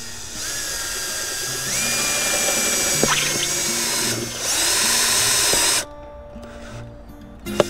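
Cordless drill with a step drill bit boring cable holes through a clear plastic box. The motor whines with a grinding noise, its pitch steps up about two seconds in as it speeds up, and it stops a little past halfway. A single sharp click comes near the end.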